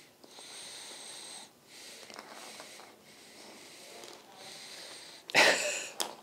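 A dog in a muzzle breathing heavily in slow hissing breaths, about one a second, while it squirms. A sudden loud burst of noise comes near the end.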